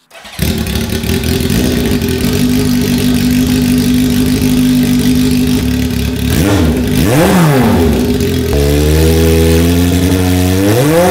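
A 1974 Honda CB750K's air-cooled inline-four fires up through an open 4-into-1 header with no muffler and runs loud and raspy at idle. It is blipped once about six and a half seconds in, then held at a faster idle that climbs into a second rev near the end.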